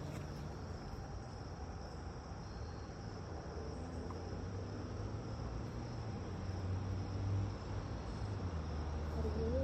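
Insects chirring steadily in a high, even band, with a low rumble underneath that grows louder in the second half.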